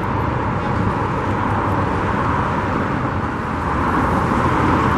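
Steady roar of freeway traffic, a continuous even rush of tyre and engine noise.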